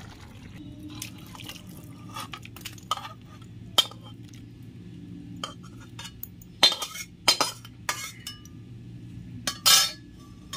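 A metal spatula clinking and scraping against an aluminium kadai as fish curry is spooned out into a bowl: a scattered string of sharp clinks and knocks, the loudest ones between about six and ten seconds in.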